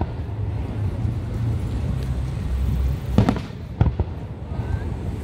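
Aerial firework shells bursting in a fireworks display: a continuous low rumble of booms, with two sharp bangs a little after three seconds and near four seconds in.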